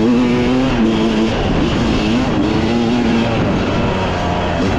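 Off-road vehicle engine running hard while being ridden, its pitch rising and falling repeatedly as the throttle is worked, dipping near the end and then climbing again.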